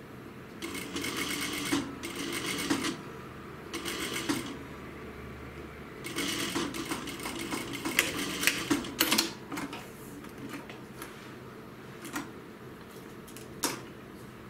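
JUKI industrial lockstitch sewing machine stitching in four short runs with pauses between them, the longest run about three seconds. Near the end, two single sharp clicks.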